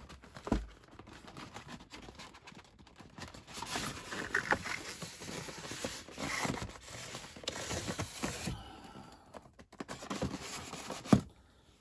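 Packaging of a boxed scale model being opened and handled: rustling and scraping of plastic and polystyrene, with scattered knocks. The rustling is densest in the middle, and there is one sharp click near the end.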